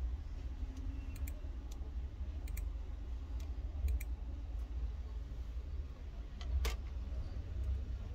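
Scattered clicks of a computer keyboard and mouse, irregular and spaced apart, with one louder click towards the end, over a steady low hum.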